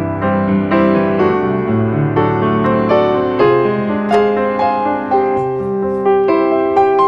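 Background piano music, soft notes played at an unhurried pace.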